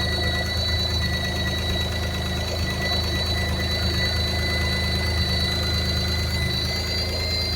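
Car engine idling with a steady high-pitched whistle over its low rumble. The engine has just had its timing belt changed after ten years standing, and the owner wonders whether the whistle comes from the clutch or from a vacuum leak.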